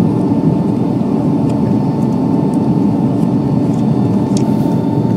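Steady cabin noise of a Boeing 757 airliner in flight: engine and airflow rumble, with a faint steady high whine on top.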